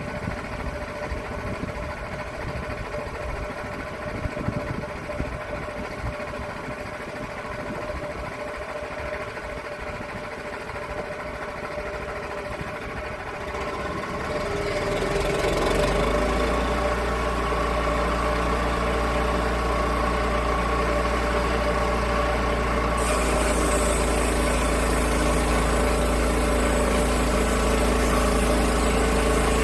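Portable sawmill's engine running steadily, getting louder and heavier about halfway through; a bright hiss comes in suddenly about three-quarters of the way through, as the log is sawn.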